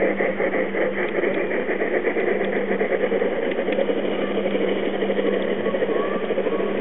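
Garden-scale model train running on outdoor track: a steady mechanical whirring and rail clatter with a constant low hum.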